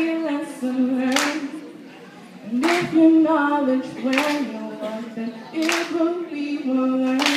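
A woman singing a slow melody with long held notes, with a sharp hand clap about every second and a half keeping the beat.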